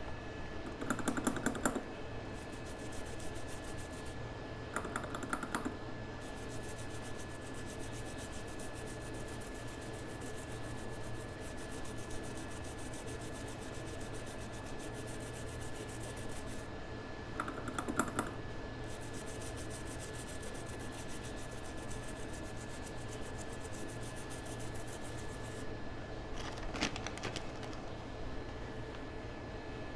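Short runs of rapid typing on a computer keyboard, four times, over a steady background hum with a faint constant high whine.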